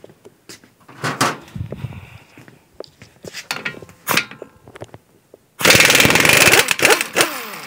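Impact wrench hammering a staked 32 mm CV axle nut loose: a sudden loud, rapid rattle starting about five and a half seconds in and lasting about a second and a half, then winding down with a falling whine as the nut comes off. Before it, scattered clicks and knocks.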